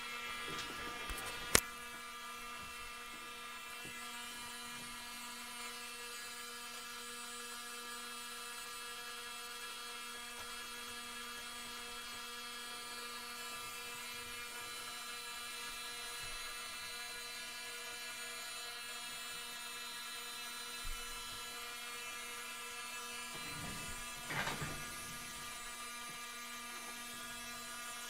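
Steady electric whine of the InMoov humanoid robot's servo motors, a stack of fixed high tones with no change in pitch. A single sharp click about a second and a half in, and a short burst of knocks a few seconds before the end.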